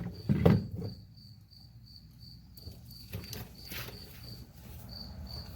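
Crickets chirping: a steady, high chirp repeating about three times a second. A short knock comes about half a second in.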